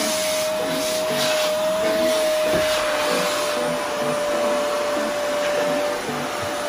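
Vacuum cleaner running steadily through a flexible hose and wand as it cleans closet shelves: an even rush of air with a steady whine over it.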